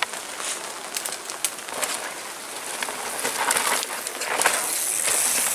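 Downhill mountain bike's tyres rolling and skidding on a loose dirt track as the rider passes, a rough hiss with scattered clicks that grows louder towards the end.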